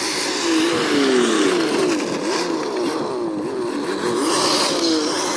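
HSP radio-controlled rally car's motor revving, its pitch rising and falling again and again as the car speeds up and slows, with hiss from the small tyres on asphalt.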